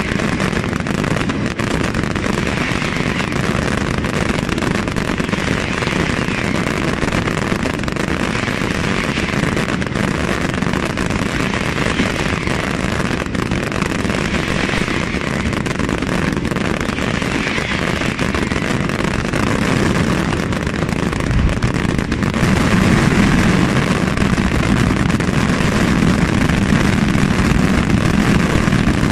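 Fireworks barrage: many comets and low shells launched and bursting in quick succession, the shots merging into a continuous crackling din. It grows louder and deeper about three quarters of the way through.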